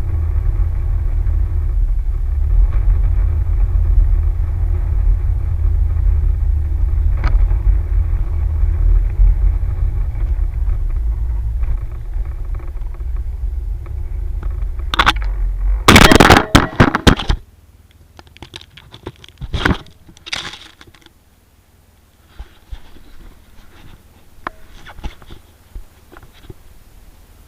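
A vehicle engine runs with a steady low rumble, then a loud rattling clatter about two-thirds of the way through and the engine sound stops; after that only scattered small clicks and knocks.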